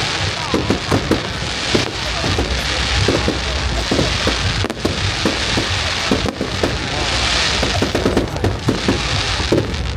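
Aerial fireworks display: shells bursting in many sharp bangs and pops in quick succession, over a continuous hiss that swells and fades.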